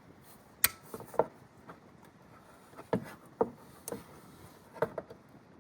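Vise grips (locking pliers) being fitted and clamped onto a battery cable end: a string of about seven sharp metal clicks and knocks, the loudest less than a second in.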